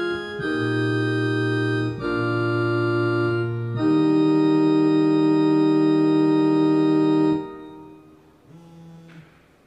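Organ playing slow sustained chords that change every second or two, then one long loud chord held and fading out a little after seven seconds; a brief soft chord follows before the sound stops.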